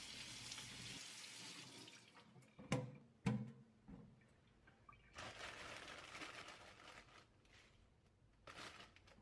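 Water running from a tap into a sink in two spells, with two sharp knocks about half a second apart between them.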